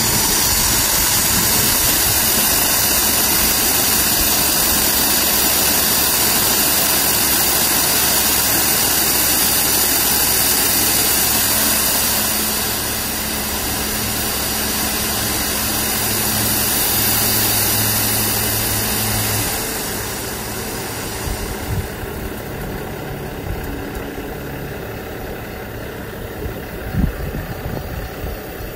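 Dump truck's diesel engine running steadily, driving the hydraulic hoist that tips the loaded gravel bed, under a loud steady rushing hiss that drops away after about twenty seconds. A few small knocks come near the end.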